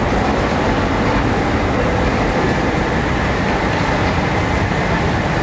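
Metro station escalator running: a steady, even rumble with no distinct knocks or tones.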